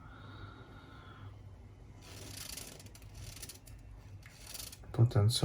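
Two short hisses of an aerosol can spraying potentiometer lubricating solution onto a cotton swab, the first about a second long, the second briefer.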